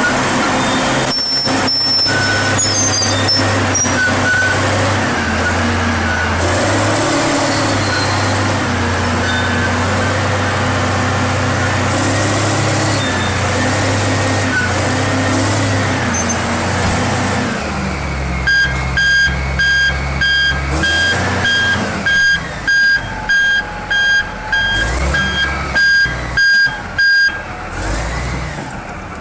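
Heavy machine engine running, its pitch shifting as it works. Later, a reversing alarm beeps steadily over the engine, about twice a second, for several seconds before stopping.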